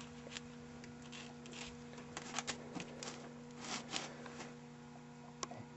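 Faint steady electrical hum, with scattered light clicks and rustles of handling.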